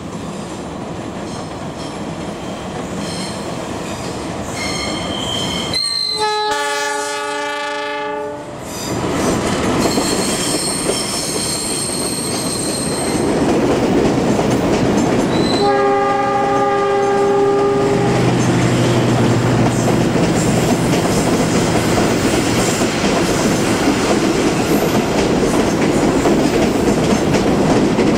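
Diesel-hauled passenger train approaching and passing. It sounds two long horn blasts, about six and about sixteen seconds in. From about halfway on, the coaches go by with a steady rumble and clatter of wheels on the rails.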